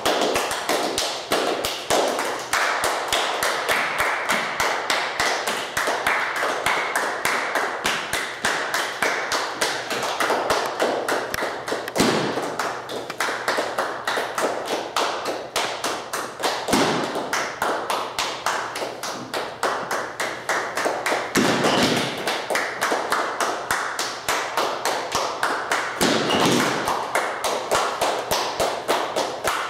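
Body percussion by a small group without instruments: fast, continuous hand claps and taps, with a few heavier thumps mixed in.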